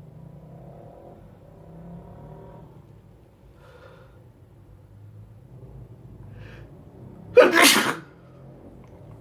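A person sneezing once, loudly and briefly, about seven seconds in, after several seconds of faint low sounds.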